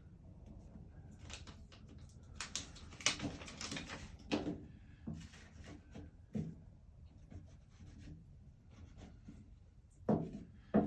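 Irregular rubbing and scraping strokes as a vinyl decal is worked down on a truck tailgate, most of them in the middle of the stretch.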